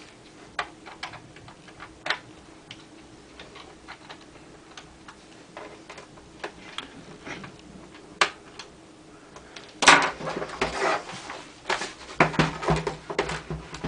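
Scattered plastic clicks and taps as the memory compartment cover on the underside of an HP ZD7000 laptop is handled and fitted back on. A louder, denser run of clattering comes about ten seconds in and again near the end.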